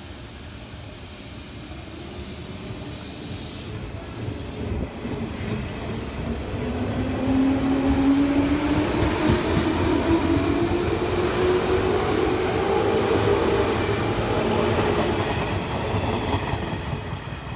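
JR West 201 series electric commuter train pulling away from the platform and running past close by, with rising motor whine and wheel and rail noise as it gathers speed. It is loudest in the middle as the cars go by, then fades.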